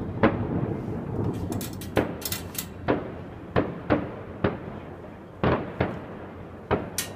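Distant fireworks going off: about ten sharp bangs at uneven intervals, with a patch of crackling about two seconds in.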